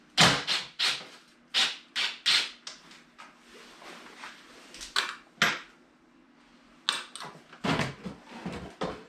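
Irregular sharp clicks and knocks of hard parts being handled at the back of a snowmobile, around its taillight and tunnel. They come thick for the first couple of seconds, a few more about five seconds in, and another cluster near the end.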